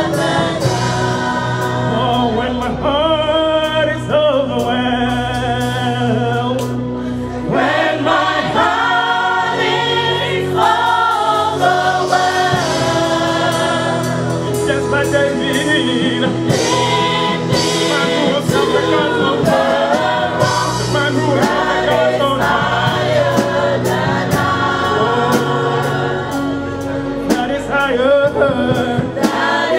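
Gospel worship team singing a slow worship song into microphones, a male lead with a group of women's voices, over a live band with drums and sustained bass notes.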